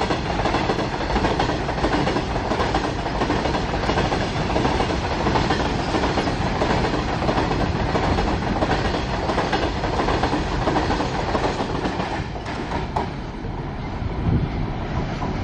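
Goods train of covered wagons passing at speed: a steady loud rush of steel wheels on the rails that thins out about thirteen seconds in as the brake van at the tail goes by.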